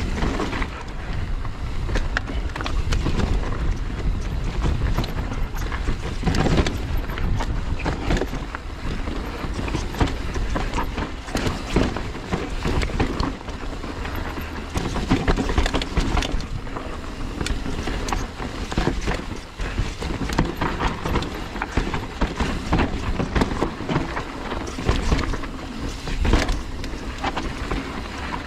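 Mountain bike riding down a rough dirt trail: tyres running over dirt, roots and rocks, with the bike rattling and knocking over the bumps, and wind rushing on the microphone.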